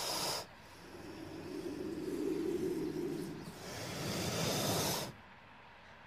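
Snake hissing: one hiss stops about half a second in, a lower breathy sound follows, then a second long hiss cuts off suddenly about five seconds in.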